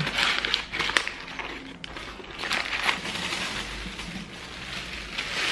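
Paper wrapping crinkling and crumpling as fresh cheese is unwrapped by hand, then a plastic bag rustling as olives are emptied from it; irregular crackles, busiest in the first second.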